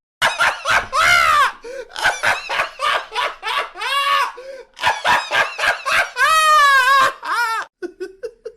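A man's high-pitched laughter, coming in rapid short bursts that arc up and down in pitch. A longer peal comes about six seconds in, and fainter laughs follow near the end.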